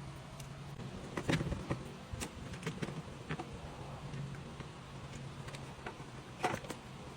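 Scattered metallic clicks and knocks of hand tools at work in a car's engine bay, over a steady low hum.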